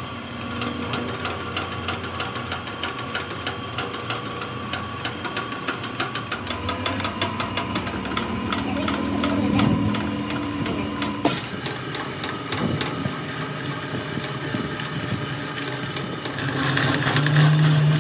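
Drill press running as a drill bit cuts into a thick steel plate, with a fast, even ticking from the cut. The sound changes abruptly twice.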